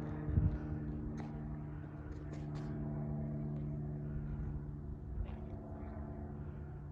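A steady low machine hum with an even, unchanging pitch, with a brief low bump about half a second in and a few faint clicks.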